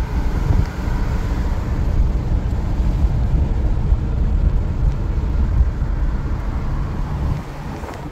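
Moving car: a loud, steady rumble of road and wind noise.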